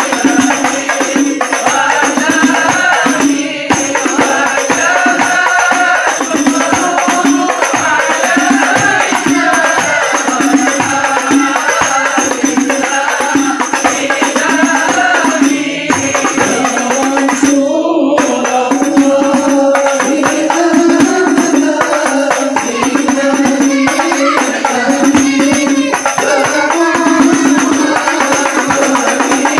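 A hadrah ensemble of hand-beaten rebana frame drums playing a busy rhythm under a group of men singing together.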